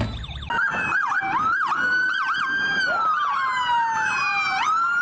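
Electronic police siren: several overlapping wails and quick yelps gliding up and down in pitch, starting about half a second in. One long slow fall is followed by a sharp rise near the end.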